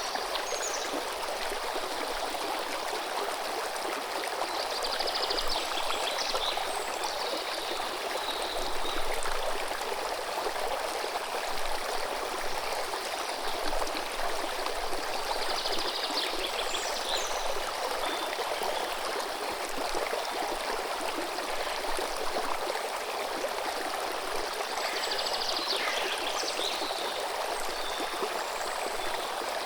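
River water running steadily with an even rushing sound, and a small bird singing a short high phrase three times, roughly every ten seconds.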